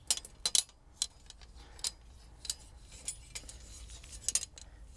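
Light metallic clicks and clinks at irregular intervals, from a metal obelisk trellis's poles and curved metal strap knocking together as the strap is slid into a bolted joint.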